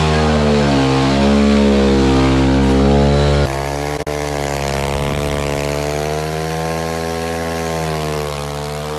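Kawasaki KLX110 pit bike's small single-cylinder four-stroke engine running at high revs with its rear wheel spinning, the pitch rising and falling slightly. About three and a half seconds in the level drops a little.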